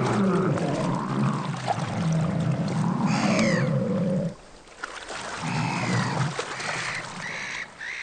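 Grey seals on a haul-out rock moaning and growling in long wavering calls, one rising and falling higher about three seconds in. A short lull follows, then more moans.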